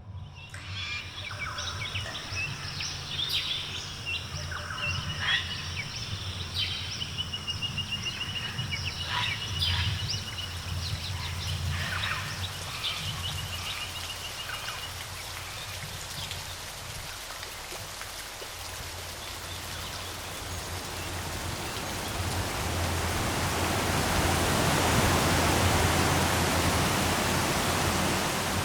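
Birds chirping and trilling over a steady rush of falling water; the rush swells and becomes the loudest sound about two-thirds of the way through.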